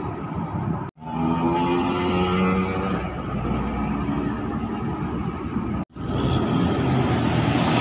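Road traffic passing close by: a minibus drives past with a steady engine hum and tyre noise, then a car and a box truck go by. The sound cuts out abruptly twice, about a second in and near six seconds, where clips are spliced.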